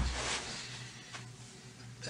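A man breathing and sniffing heavily while crying, with a low bump at the very start and a small click a little after a second, over a steady low hum.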